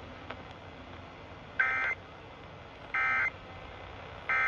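Emergency Alert System end-of-message signal: three short bursts of SAME digital data tones, each about a third of a second long and about a second and a half apart, over faint radio hiss. The bursts mark the end of the weather alert message.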